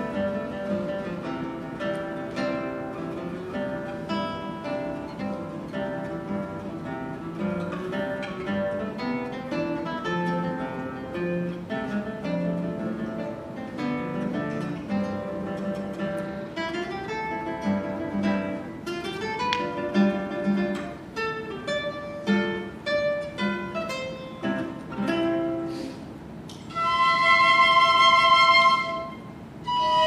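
A classical guitar plays a solo passage of plucked chords and runs. Near the end the piccolos come in with a loud held high note lasting about two seconds, then start a quick high passage.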